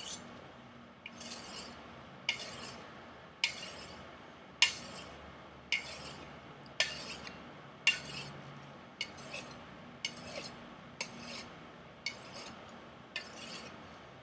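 Chinese chef knife being stropped on a strop loaded with green compound, in alternating passes: a soft rubbing stroke with a sharp click about once a second, as the blade turns over and touches down.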